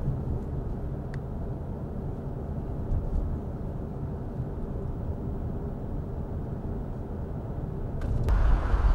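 Steady low rumble of a car driving, road and engine noise heard from inside the cabin. Near the end the noise gets louder and brighter.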